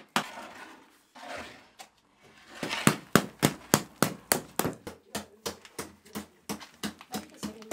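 A wooden stick beating the thick, burnt crust off a loaf of freshly baked country bread, in a quick, even run of knocks about three a second. The knocking begins a couple of seconds in, after softer rustling noise.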